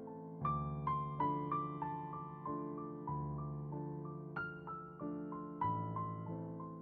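Slow, gentle solo piano music: a melody of single struck notes, a few a second, each ringing out over held low notes.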